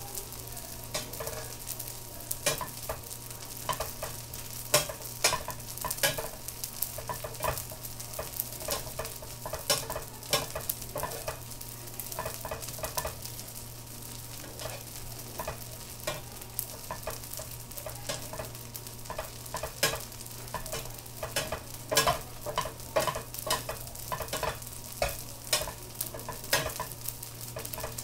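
Small dried anchovies stir-frying in oil in a pan: a light sizzle with irregular stirring strokes scraping and clicking against the pan, busier in the second half, over a steady low hum. This is the stage of frying the anchovies until they turn white and then light brown, so they stay crisp.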